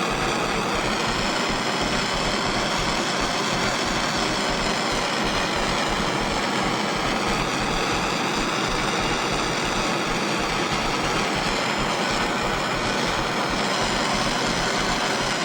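Handheld torch flame hissing steadily as it heats stainless steel mesh red hot to oxidize it.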